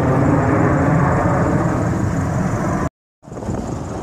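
Jet airliner engine noise, a loud steady roar that is cut off abruptly about three seconds in and comes back as a quieter rumble.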